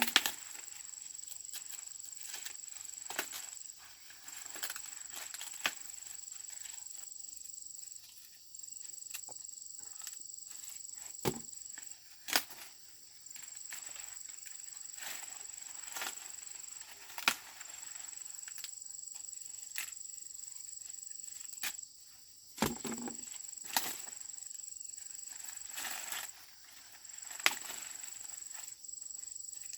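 A steady high-pitched insect drone that breaks off briefly every four to five seconds, over scattered snaps, knocks and rustles of hands working among dry corn stalks.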